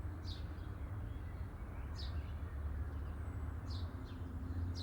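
A bird giving short, high, falling chirps, one roughly every second and a half, over a steady low outdoor background noise.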